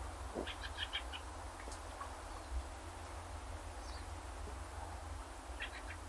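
Small birds giving short chirps, a quick cluster about half a second in and another near the end, over a steady low rumble of outdoor ambience.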